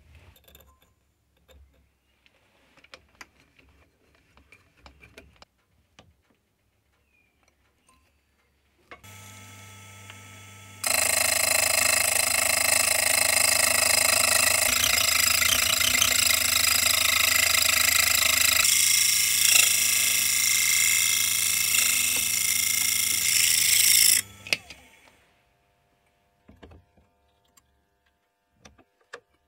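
Light handling clicks, then a milling machine spindle starts up and a slitting saw cuts a slot into a metal expanding sleeve for about thirteen seconds, with a loud, steady, high-pitched ringing screech. The cut ends, and the saw spins down and stops about ten seconds before the end.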